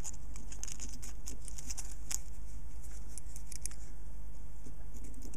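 Faint, scattered scratchy ticks of a slip of paper being worked under the brass spring contact of a wafer switch, over a steady low hum.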